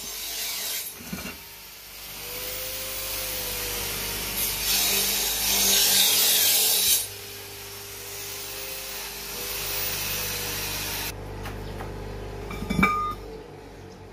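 A rasping, grinding-like noise swells in the middle and then dies away about eleven seconds in. Near the end comes a single ringing clink of steel as a bearing race is knocked against the others.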